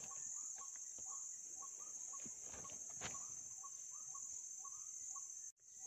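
Insects' steady high-pitched buzz with a short bird call repeating about twice a second; the sound drops out for a moment near the end.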